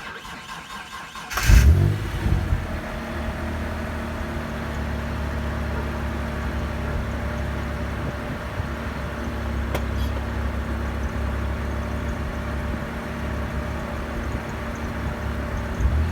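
Freshly rebuilt 3.0-litre V6 of a 1993 Mitsubishi 3000GT SL being started: a short crank, the engine catching with a loud burst about a second and a half in, then running steadily.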